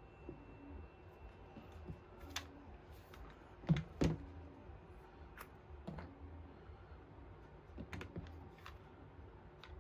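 Scattered light clicks and taps of brass quick-connect fittings and a plastic pressure washer gun being picked up and handled on a cutting mat, with two louder knocks about four seconds in, over a low steady hum.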